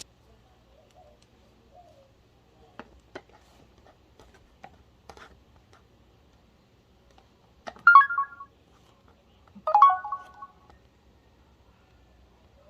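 A few faint clicks, then two short electronic multi-tone chirps from a Samsung SGH-A697 Sunburst phone's speaker, about two seconds apart, each lasting under a second.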